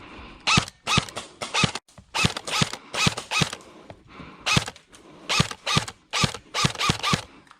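Airsoft rifle firing single shots, about fifteen sharp mechanical cracks at an uneven pace, each with a short metallic ring.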